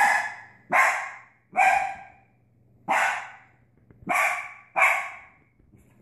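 A puppy barks six times: loud, separate barks of about half a second each, with a longer pause near the middle.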